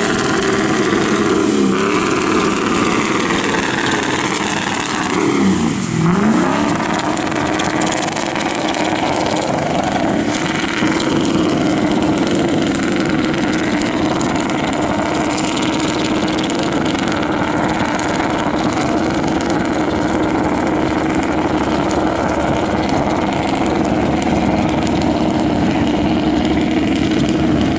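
4x4 pickup truck engine run hard, its pitch dipping and climbing twice in the first six seconds, then held at high revs in a steady drone that drops away at the very end.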